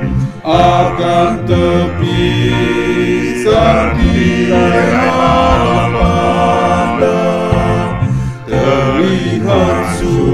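Male vocal quartet of two tenors and two basses singing a hymn in four-part harmony, with brief breaks between phrases about half a second in and about eight seconds in.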